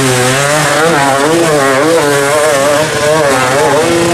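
Dirt bike engine revving hard, its pitch rising and falling several times a second as the throttle is worked while climbing a steep dirt slope.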